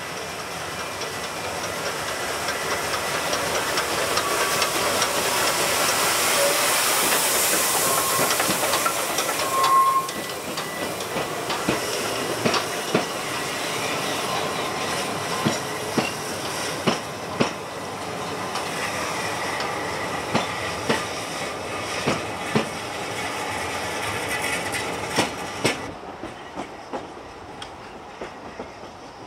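Narrow-gauge steam train running past with a steady steam hiss. The hiss grows louder over the first several seconds, then comes the uneven clickety-clack of wheels over rail joints, which fades near the end.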